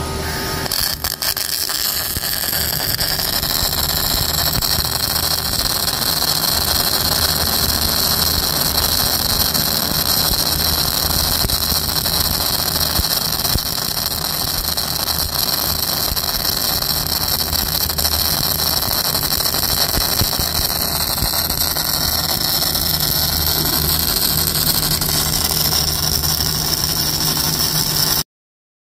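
Pulsed MIG welding arc from a Fronius TransSteel 5000 Pulse on steel, struck with a few clicks about a second in and then running steadily through the weld.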